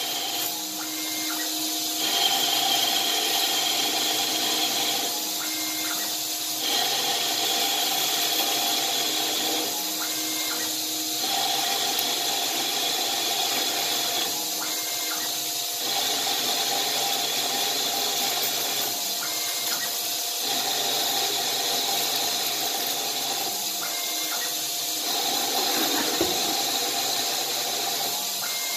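CNC-converted Grizzly G0602 metal lathe turning a pulley blank, with the cutting tool shearing off stringy chips over the running spindle. The machine's whine changes tone in a regular cycle about every four and a half seconds, as one pass follows another.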